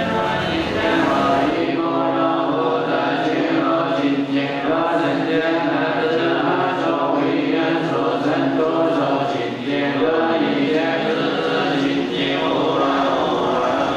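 A congregation chanting Buddhist sutras in unison: a low, steady chant of many voices.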